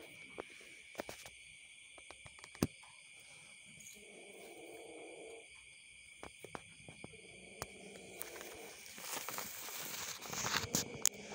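Crickets chirring steadily in the background while a frightened ginger kitten gives low drawn-out growls, twice, about four and about seven and a half seconds in.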